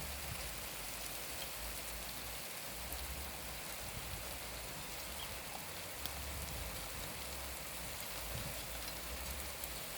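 Steady rain falling: an even hiss, with scattered single drops ticking.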